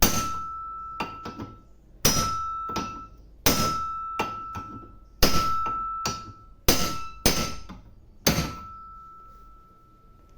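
Bearing being driven into the washing machine's drum housing with a makeshift striking tool: seven sharp metallic strikes at irregular intervals, each leaving a ringing note that lingers.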